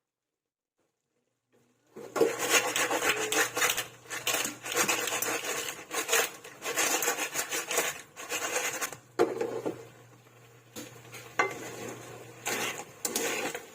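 Dishes and kitchen utensils clattering and scraping in quick, irregular knocks and rubs, over a steady low hum; the sound cuts in about two seconds in, after dead silence.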